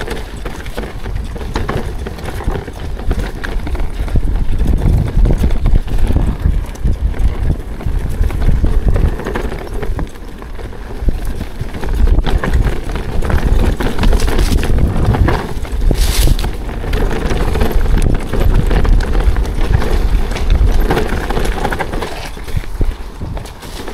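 A ProPain Ekano 2 full-suspension mountain bike clattering down a rocky trail: tyres rolling over rock and dirt with a steady rumble and constant knocks and rattles from the frame, chain and suspension. It builds to its loudest about four seconds in and eases off near the end.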